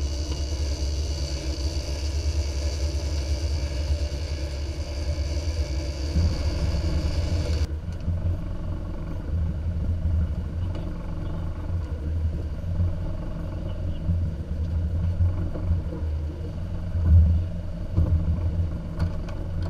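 Boat engine running steadily under way, a low rumble mixed with water noise. The sound changes abruptly about eight seconds in, where the higher hiss drops away, and there is a brief louder bump near the end.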